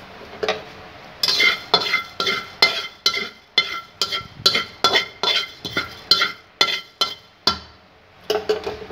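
Whole coriander seeds being stirred in a dry metal karahi, the utensil scraping and clinking against the pan in regular strokes about twice a second, each with a short metallic ring. The seeds are being dry-roasted. The strokes start about a second in, pause briefly near the end, then resume with a few quick strokes.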